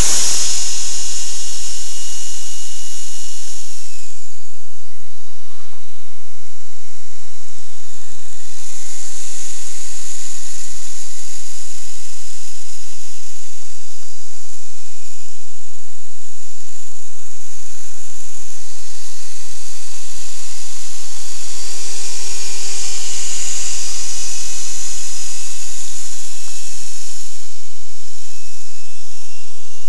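A 65 mm electric ducted fan RC jet fitted with a jet sound effect device, running with a loud, steady hissing rush and a thin whine. The whine drops in pitch about four seconds in and rises again near the end as the throttle changes.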